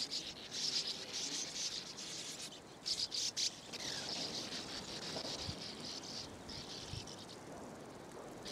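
Sand martins calling at their nesting colony: dry, buzzy, high twittering that comes in short, overlapping bursts.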